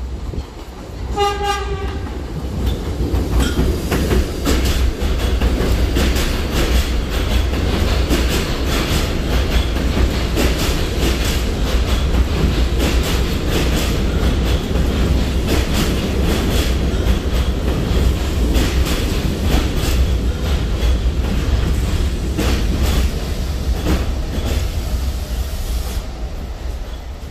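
R68A subway train sounding one short horn blast about a second in, then rolling in along the platform on elevated steel track. Its steel wheels make a loud steady rumble with rapid clacking over the rail joints, which eases off near the end.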